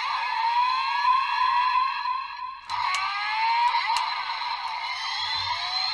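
Electronic sound effects and music from a Kamen Rider Geats toy belt's small speaker: many rising, siren-like sweeps of tone over one another. They break off briefly a little before halfway, then a click and the sweeps start again.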